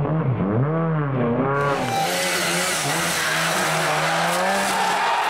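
A Lada rally car's engine revving sharply up and down, then, after a cut about one and a half seconds in, a Trabant rally car's engine held at steady high revs as it corners.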